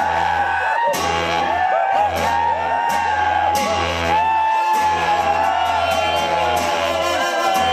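Festival crowd whooping and shouting together, many voices swooping up and down, over music with a low steady drone and sharp crashes.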